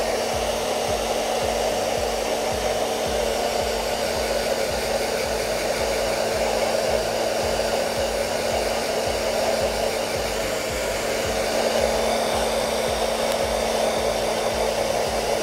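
Handheld hair dryer running steadily, a continuous rush of air with a steady hum under it, blowing warm air onto a puppy's coat.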